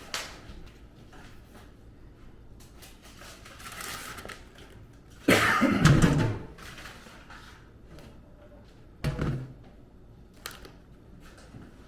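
Kitchen handling noise: a few knocks and thuds as things are set down and moved, the loudest a heavy thump lasting about a second near the middle, and a shorter thump about nine seconds in.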